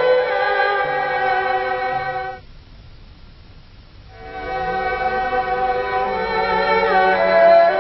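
Background music with a sustained bowed-string melody. It breaks off about two and a half seconds in, leaving a quiet gap of under two seconds, then new music with a similar bowed melody starts.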